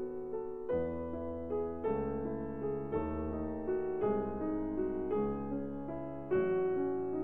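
Background piano music, with a new chord about once a second.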